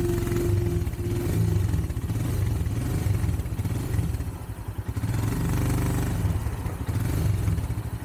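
Royal Enfield Himalayan's single-cylinder engine running as the sidecar outfit is ridden along.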